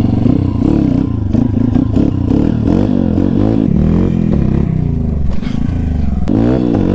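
Kayo pit bike's YX 140cc single-cylinder four-stroke engine being ridden, revving up and falling back again and again. A quick sharp rise comes near the end.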